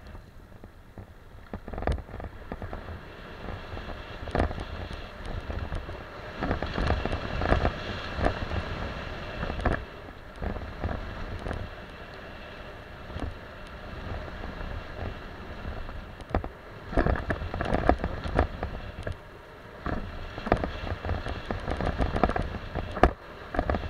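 Mountain bike riding fast down a dirt singletrack: tyres rolling over packed dirt with a low rumble, and irregular knocks and rattles as the bike hits bumps and roots, in clusters with a smoother stretch in the middle.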